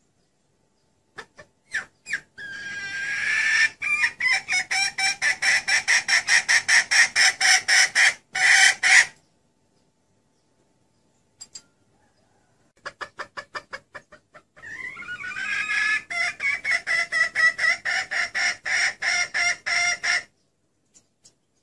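Female red junglefowl cackling: two long bouts of rapid clucks, about five a second, each opening with a few spaced notes. This is the hen's call used as a lure to draw in male junglefowl.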